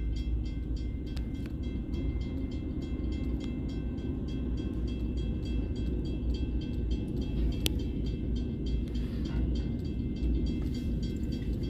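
Pacific National NR-class diesel-electric locomotive passing over a level crossing, then freight wagons rolling by with a steady low rumble of wheels on rail. A level crossing bell rings rapidly and evenly throughout, and one sharp clack stands out about two-thirds of the way through.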